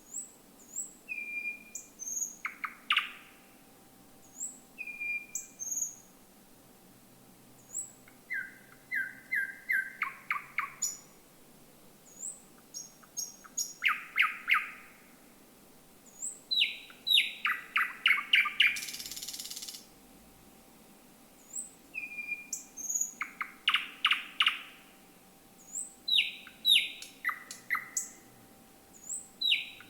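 A thrush nightingale singing: about seven phrases that open with high thin notes and end in loud, rapid runs of dry clicking notes, with pauses of a second or two between phrases. One phrase about two-thirds through ends in a short hiss. A faint steady hum sits underneath.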